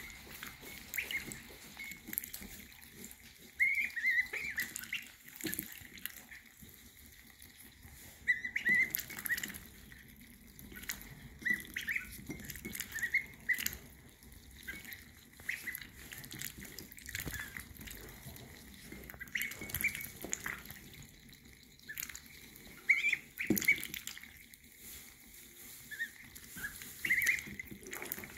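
Ducklings peeping in many short, high calls, with water splashing and dripping as they dip their bills into a bowl to drink.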